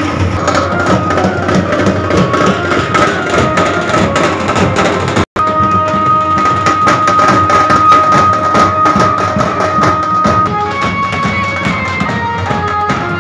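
Procession band music: large drums beating a dense rhythm under a high stepping melody. About five seconds in, the sound drops out for an instant, then the melody holds one long high note for about five seconds before it moves again.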